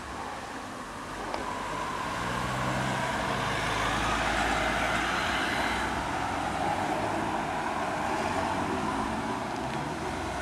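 Road traffic noise: a motor vehicle's engine running nearby with a low hum, swelling about two seconds in and then holding steady.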